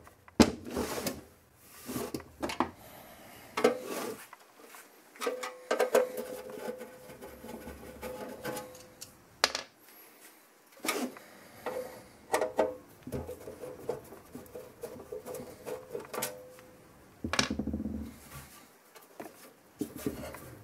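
Sheet-metal ballast box of a Pierlite high bay light being handled and unscrewed on a bench: scattered clicks and knocks as the box is turned and set down, and a screwdriver works out the lid screws.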